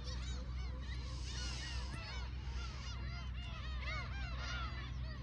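Many gulls calling together, a dense run of short, overlapping arched cries, over a steady low rumble.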